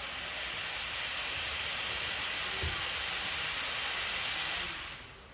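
Steady hiss of steam escaping from a standing steam train, fading away near the end.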